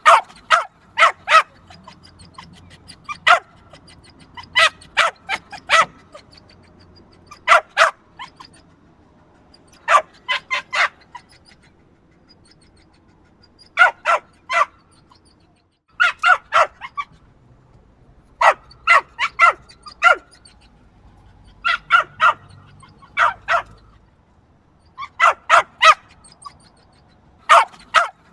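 A small dog barking: short, high-pitched yaps in quick runs of two to four, with pauses of a second or two between runs.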